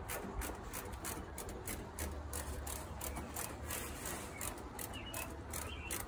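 Work noise at an outdoor air-conditioner condensing unit: irregular rubbing and clicking over a steady low rumble.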